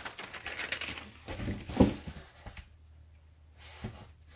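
Packaging paper and plastic rustling as they are handled, with a soft thump a little under two seconds in and a lighter knock near the end.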